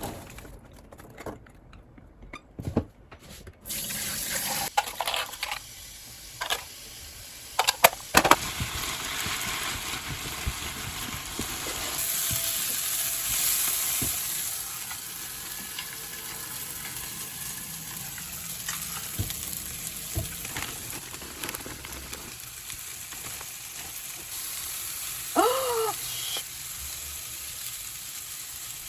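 Chopped vegetables sizzling in a hot pot while being stirred, the sizzle starting suddenly a few seconds in, with scattered utensil knocks against the pot. A short, pitched squeak-like sound comes near the end.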